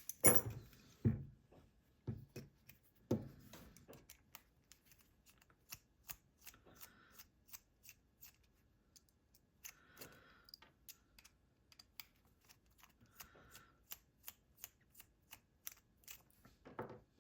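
Faint small clicks and taps of an ASSA 600 lock cylinder being handled and taken apart, with a few heavier knocks at first and then light clicks a couple of times a second.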